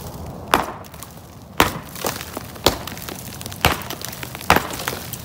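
Sledgehammer striking the top of a brick chimney, five sharp blows about a second apart, loosening the mortared bricks so the chimney starts to break up.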